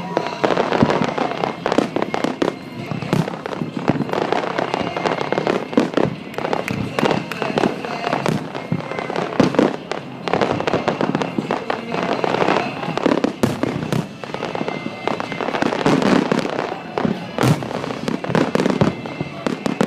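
Aerial fireworks display, shells bursting in quick succession with many sharp bangs and crackles overlapping throughout.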